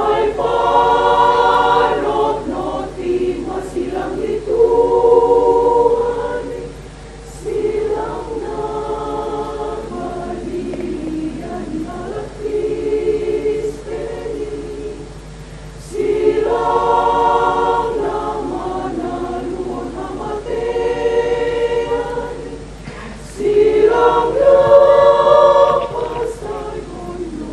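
Women's choir singing a hymn in parts, sustained chords in phrases that swell loud and fall back soft, with short breaths between phrases.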